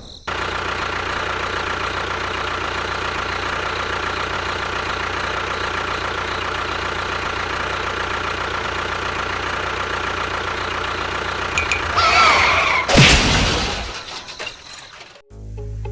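A small motor runs at a steady, even pitch for about twelve seconds. Near the end come brief warbling sounds and a single loud thump.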